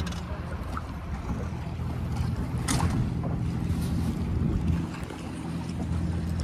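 Boat motor running steadily at low speed, with wind on the microphone; a short rushing sound about two and a half seconds in.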